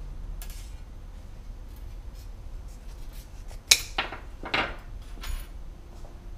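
Small metal parts clinking and scraping while being handled: a light scrape near the start, then a few sharp clinks a little past halfway, the first one the loudest.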